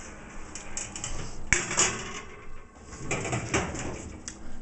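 A metal dish clanking onto an electric oven's rack and the oven door being shut: a sharp knock about a second and a half in and a short clatter about three seconds in.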